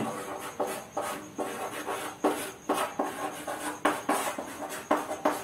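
Chalk writing on a chalkboard: an irregular run of short scratches and taps as letters are written, several strokes a second.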